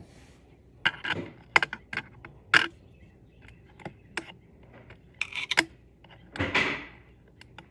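Hands fiddling with a video doorbell and its mount: irregular light clicks and taps with short rustles, and the sharpest clicks about one and a half and two and a half seconds in.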